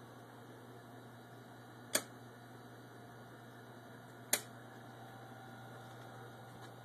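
Two sharp clicks about two and a half seconds apart, over a steady low electrical hum.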